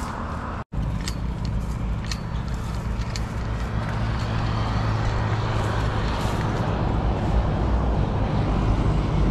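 A motor vehicle's engine running steadily with a low rumble, getting a little louder toward the end.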